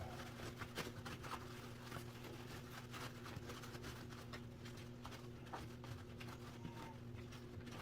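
Faint handling noises: scattered small clicks and light scrapes from working on parts by hand, over a steady low hum.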